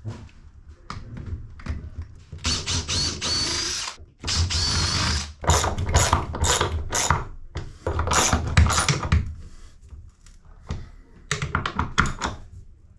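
Power drill running in two runs of a second or two each, with a rising whine, as it fastens a fuel filter's mounting bracket into wooden boat framing. After that come a string of sharp clicks and knocks.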